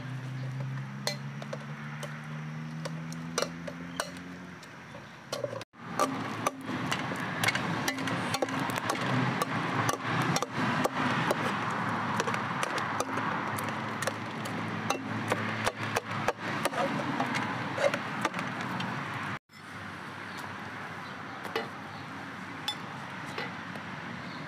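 Metal spoon clinking and scraping against a pot as thick lamb stew (abgoosht) is stirred, mashed and ladled out, in irregular clinks.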